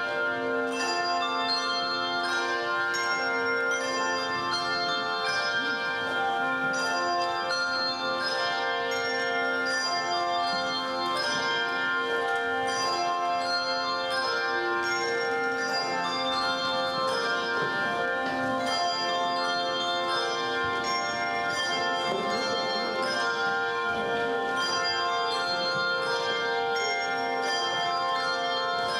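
Music played on tuned bells: struck notes ringing and overlapping at a steady pace.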